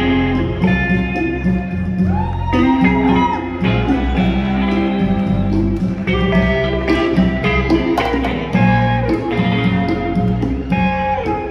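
Live band playing guitar-led music, with a bass line underneath and a few sharp hits, likely drums.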